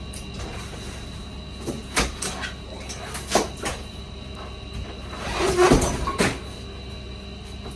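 Knocks and clacks of a new refrigerator's door and fittings being handled, with a longer scraping rustle about five seconds in.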